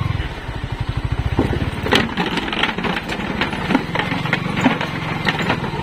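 Motorcycle engine running at low revs with a fast, even pulsing beat, followed by scattered sharp knocks and clatter.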